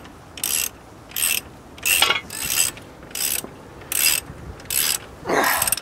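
Ratchet wrench clicking in repeated strokes, about eight in a row at a steady pace, while a front disc-brake caliper's mounting bolts are tightened back in.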